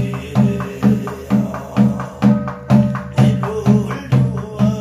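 Korean barrel drum (buk) on a stand, beaten in a steady beat of about two strokes a second, under a man's voice chanting a shamanic scripture in Korean.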